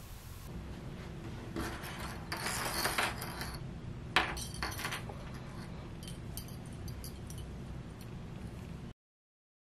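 Small plastic sewing clips clicking and clattering against each other on a clip-covered strip of bias tape as it is handled, with one sharp click about four seconds in.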